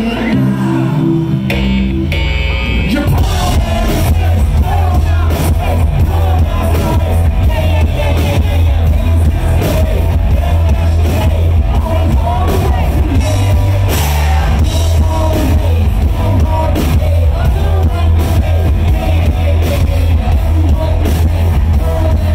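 Live rock band playing loud: drums, electric bass and guitar with a singer at the microphone. The first couple of seconds are sparser, with stepped bass notes, before the full band comes in.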